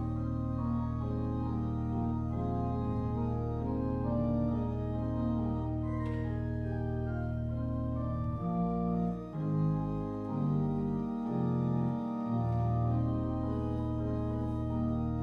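Church organ playing slow, sustained chords over a held deep bass note; the bass line steps through several notes about halfway through.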